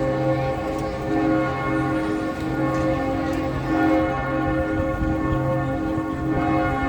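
Church bells ringing: several bells at different pitches struck again and again, their tones overlapping and ringing on, over a low hum of street noise.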